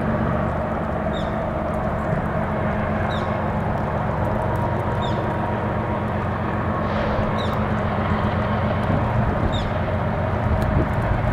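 Diesel locomotives of an approaching CSX freight train, a steady low drone of engines. A short high chirp repeats about every two seconds over it.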